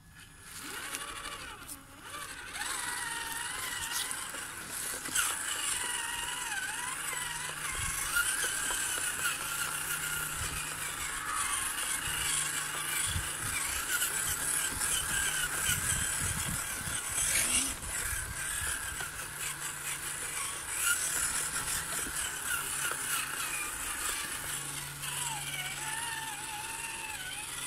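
Traxxas TRX-4 RC crawler's electric motor and gearbox whining as it crawls, the pitch wavering up and down with the throttle, with a few short clicks and knocks.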